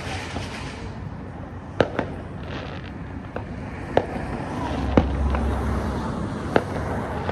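Fireworks going off: a string of sharp bangs, four loud ones one to two seconds apart among smaller pops, with a fizzing crackle near the start and a low rumble around the middle.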